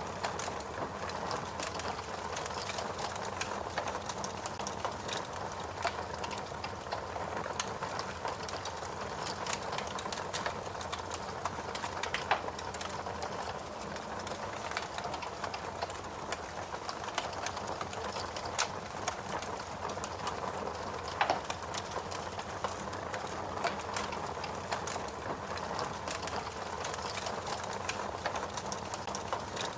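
Fire crackling steadily, a running hiss scattered with many small pops and snaps, two of them sharper, about twelve seconds in and again about twenty-one seconds in.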